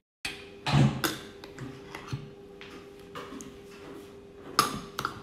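Metal spoon tapping and clinking against a metal mixing bowl as thick sauce ingredients are spooned in. There are a few sharp taps, the loudest about a second in and again near the end, with lighter ticks between them over a steady faint hum.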